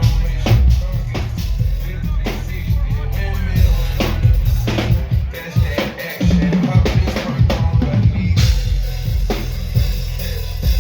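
Drum kit played live, with kick drum, snare and rimshots hit hard over heavy bass. The low end drops out briefly about six seconds in, then comes back.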